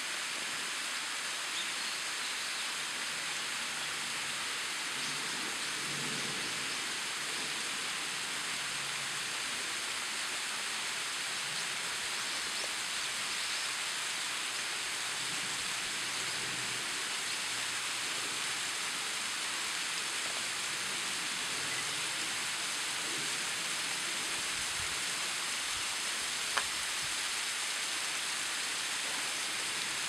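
Tall waterfall running with little water, thin streams falling down a bare rock face with a steady hiss. One brief click near the end.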